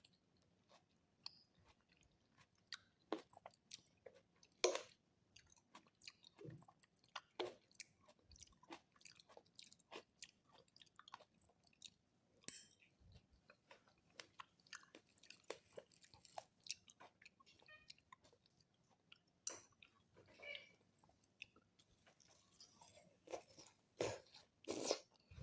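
Faint sounds of a person eating: chewing, with many small, irregular clicks and crunches.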